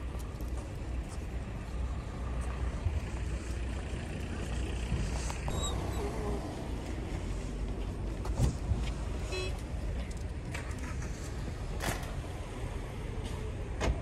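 Car-park traffic noise: a steady low rumble of cars, with scattered clicks and knocks and a couple of brief high squeaks.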